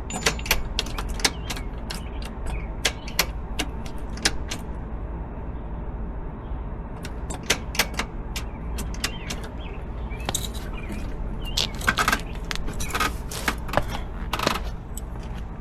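Irregular sharp metallic clicks and clacks, one to three a second, from hands working the gear shift lever and linkage, with a pause of about two seconds near the middle.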